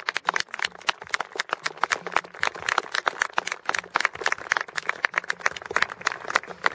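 Applause from a small audience: many separate hand claps, several a second, irregular.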